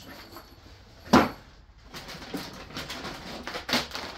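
A single sharp thump about a second in, then repeated crinkling and rustling of plastic packaging as a plastic-bagged coil of winch rope is lifted out of a cardboard box.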